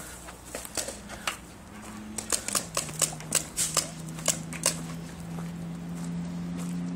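Paintball markers firing in sharp irregular pops, several a second, thinning out near the end, over a steady low hum that drops in pitch about two and a half seconds in.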